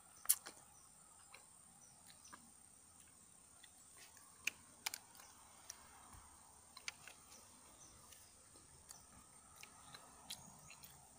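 Quiet outdoor ambience: a faint steady high-pitched insect drone with scattered small clicks and taps, the sharpest just after the start.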